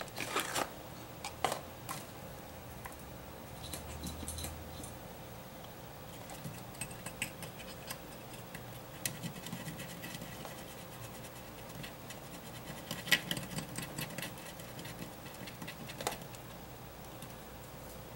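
Scattered small clicks, taps and scrapes of tools and parts being handled on a workbench, with a cluster of clicks about two-thirds of the way through.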